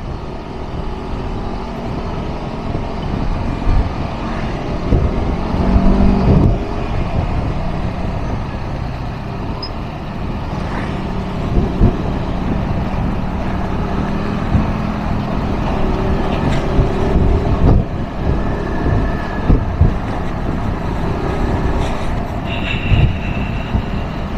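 Yamaha NMAX 155 scooter's single-cylinder engine running steadily under way, its drone rising and falling a little with the throttle, over road and wind noise. A few sharp thumps come from the rough concrete surface.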